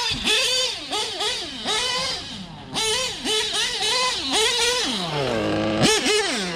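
Novarossi .25 nitro engine in a TLR 8X-T truggy, still being broken in, revving up and down in quick throttle bursts. About five seconds in it falls to a low pitch for under a second, then revs sharply again.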